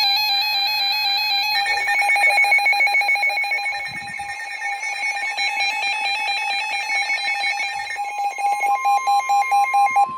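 Several NOAA weather radios sounding their alert alarms at once: overlapping electronic beeping and warbling tones, the signal that a warning is being broadcast. About eight seconds in a steady higher tone joins, and one radio's alarm pulses about four times a second near the end.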